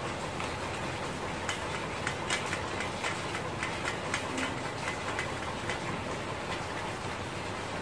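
Scattered light clicks and taps, irregular, over a steady background hiss.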